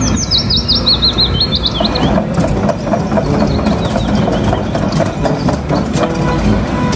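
Heavy truck engine running with rumbling and knocking, as a crane-equipped tipper truck works. A bird chirps rapidly over it for the first two seconds.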